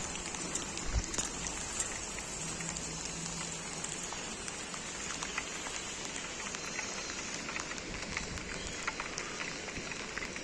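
Steady hiss of water with many small, irregular taps throughout, typical of rain falling, over the rush of a fast-flowing river in flood.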